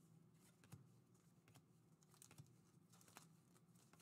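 Faint clicks and soft taps of glossy trading cards being flipped through by hand, a handful spread about a second apart over near silence.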